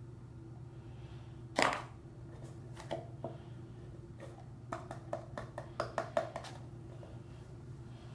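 Hands handling a glue bottle and a cup: one sharp knock, then a quick run of small clicks and taps, over a steady low hum.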